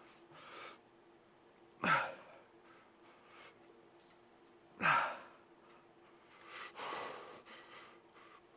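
A man breathing out forcefully as he strains through heavy incline dumbbell curls: two sharp exhalations about three seconds apart, each falling in pitch, then longer, heavier breathing near the end. A faint steady hum runs underneath.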